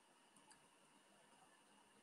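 Near silence: only a faint hiss of the recording's noise floor.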